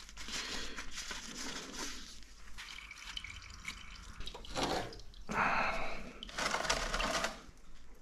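Warm engine oil draining from a Yamaha Ténéré 700's engine into a bucket, pouring and splashing unevenly, with a few louder stretches in the second half.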